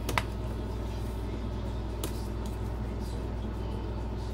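A steady low hum, with two brief sharp clicks, one just after the start and a weaker one about two seconds in, from a CD package being handled.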